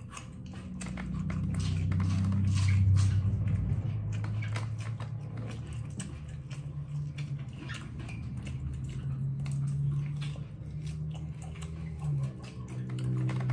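Close-up chewing and biting of grilled pork rib meat: wet mouth clicks and smacks throughout. A low droning hum sits underneath.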